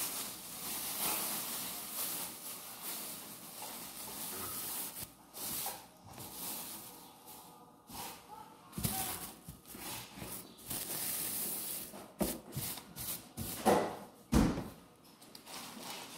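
Thin plastic sheet rustling and crinkling as it is spread and smoothed over a table, with two sharp knocks a couple of seconds before the end.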